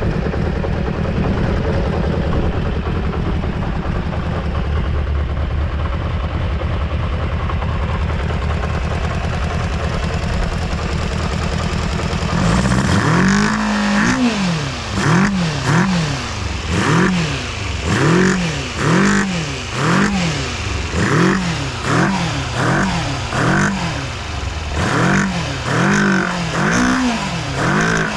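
Kawasaki GPZ400R's inline-four engine idling steadily, then from a little under halfway revved in repeated quick throttle blips, about one a second, each rising and falling in pitch. It revs up cleanly, with no abnormal noises.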